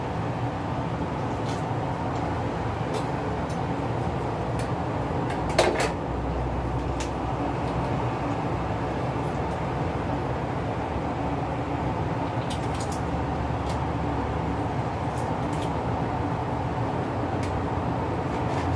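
A steady low hum, with scattered light clicks and one sharper knock about five and a half seconds in.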